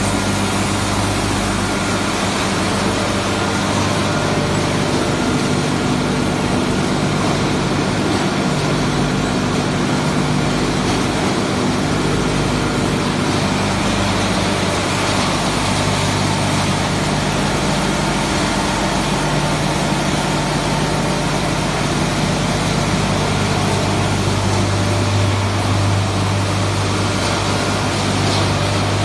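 Circuit-board crushing and separation line running: continuous loud machine noise from the crusher, vibrating sieve and electric motors, with a steady low hum beneath it.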